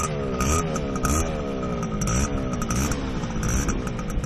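Small classic two-stroke motorcycle engine being revved, its pitch rising quickly and falling back again and again, about once a second.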